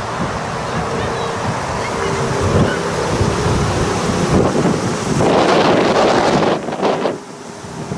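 Wind buffeting the camera microphone in a steady rush, swelling into a stronger gust about five seconds in and dropping back near the end.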